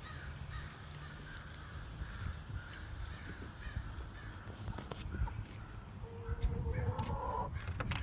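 Crows cawing repeatedly, the alarm calling that a hawk nearby sets off. A different, steadier call joins about six seconds in.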